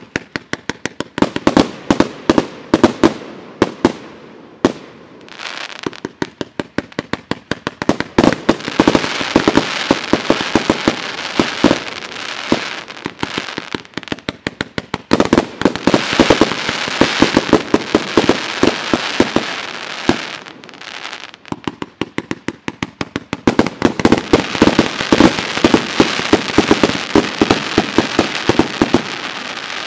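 "Centella" firework cake firing a rapid barrage of shots, several a second, over a steady hiss of burning and bursting effects. The volleys break off briefly a few times and the barrage stops suddenly at the end.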